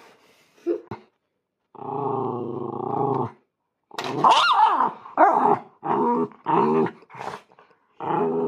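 Miniature schnauzer growling for about a second and a half, then letting out a run of about six short barks that bend up and down in pitch.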